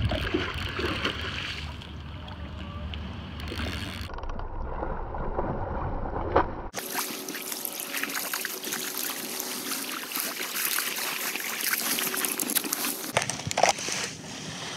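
Water sloshing and lapping in shallow water, with a low wind rumble on the microphone in the first few seconds. The sound changes abruptly several times.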